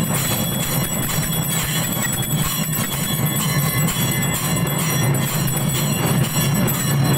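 Puja bells ringing and clanging without a break, a steady metallic din with high ringing tones over a low hum.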